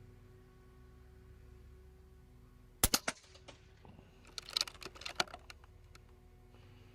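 A .25 PCP air rifle fires once about three seconds in, a sharp crack followed almost at once by a second smack, then a quick run of small mechanical clicks about a second and a half later.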